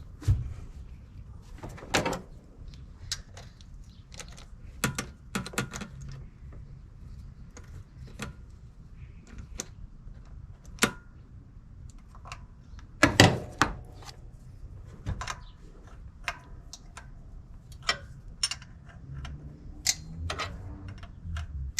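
Irregular metallic clicks and clanks of hand tools on the thermostat housing bolts as they are tightened down, with a louder cluster of knocks about two-thirds of the way through.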